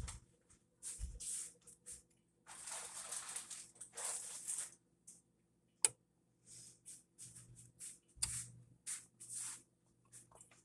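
Faint scattered rustling and handling noises over a low steady hum, with a longer hissy stretch a few seconds in and one sharp click about six seconds in.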